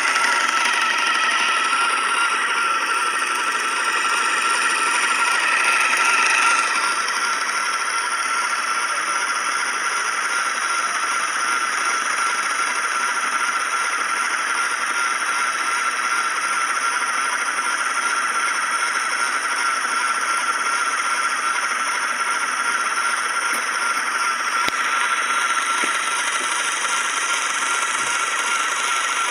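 Homemade wooden electric spinning wheel running as it spins sheep's wool into yarn: a steady whine from the motor and the fast-turning flyer and bobbin. The sound eases slightly about six and a half seconds in, then holds steady.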